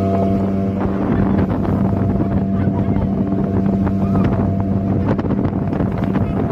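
Motorboat engine running at a steady pitch, with wind buffeting the microphone and a few short knocks in the second half.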